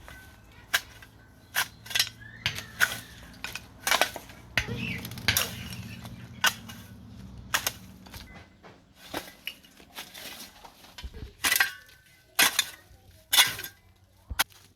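Construction work: irregular sharp knocks and clinks, some strikes with a brief metallic ring, and a short stretch of scraping noise about five seconds in.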